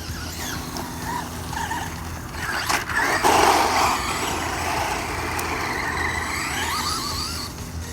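Traxxas Rustler VXL RC truck's brushless electric motor whining, rising and falling in pitch as the throttle is worked, with a loud rush of noise about three seconds in.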